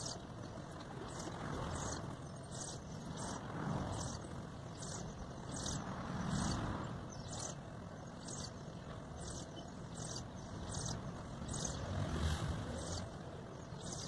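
Background rumble, like distant traffic, that swells and fades, with a faint high-pitched tick or chirp repeating evenly about every two-thirds of a second.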